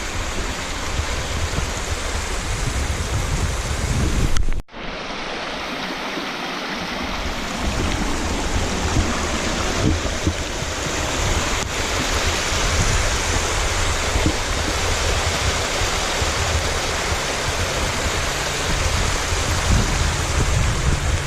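Steady rushing of a rain-swollen creek spilling over a small waterfall. It drops out abruptly for a moment about five seconds in, then resumes a little louder.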